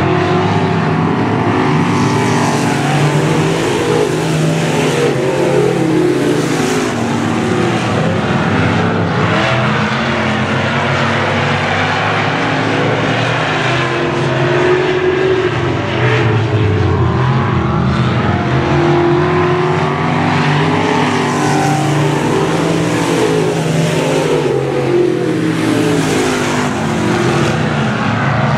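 A field of street stock race cars running laps on a dirt oval, with several engines sounding at once. Their pitch rises and falls again and again as the cars accelerate out of the turns and lift going into them.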